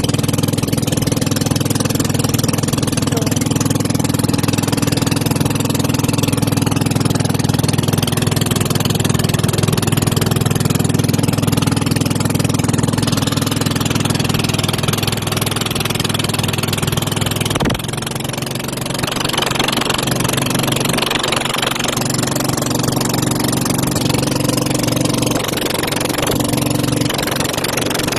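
A motor vehicle's engine running steadily. The engine note changes abruptly about two-thirds of the way through, then carries on.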